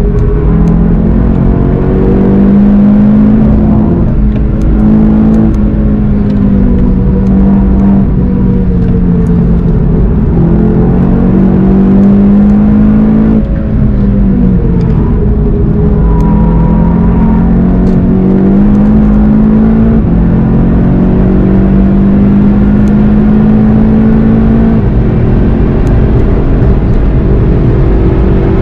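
Car engine under hard acceleration, heard from inside the cabin. Its pitch climbs through each gear and drops back at the shifts, several times, with a brief lift off the throttle about halfway through. Road and wind noise run underneath.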